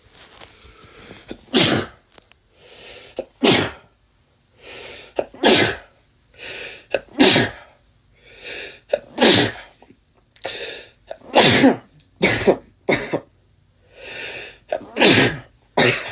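A man with a cold in a sneezing fit: about ten loud sneezes, each preceded by a short drawn-in breath, coming about every two seconds and then in quicker succession over the last few seconds.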